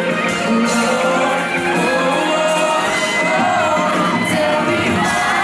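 Live pop concert music heard through a phone's microphone in a large hall: a male singer singing over the band, with the audience shouting along.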